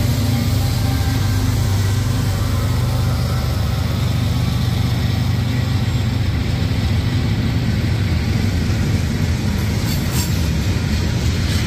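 A freight train passing close by. The GE diesel-electric locomotives' engines run with a deep steady note that fades as they pass about halfway through. Then the freight cars roll by, their wheels rumbling on the rails with a few clicks near the end.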